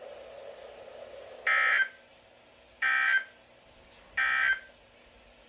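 NOAA Weather Radio sending the Emergency Alert System End of Message code: three identical short bursts of buzzy digital data tone, each under half a second, about a second and a half apart, with faint radio hiss before them. The bursts mark the end of the Required Weekly Test message.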